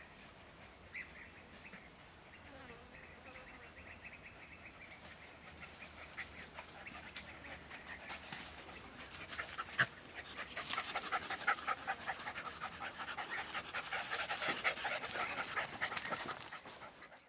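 Andalusian podenco hounds yelping in fast, continuous repeated cries from thick cover, getting steadily louder through the second half. This is a hound giving tongue while pushing game.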